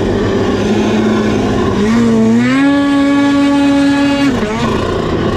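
Snowmobile engine running under throttle. About two seconds in it rises in pitch, holds a steady higher note for a second and a half, then drops back.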